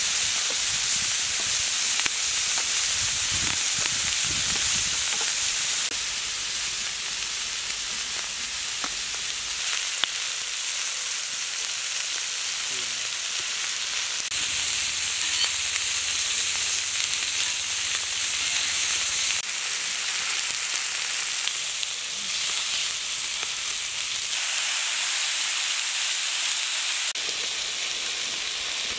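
Marinated chicken pieces sizzling in oil on a flat iron griddle over a wood fire: a steady, high hiss that changes level abruptly several times.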